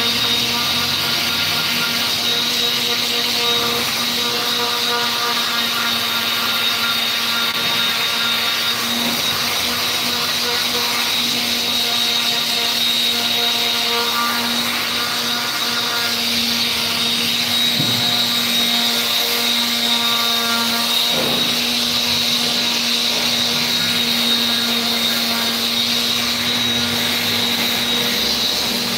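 A machine running steadily, with a loud hiss and a constant high whine.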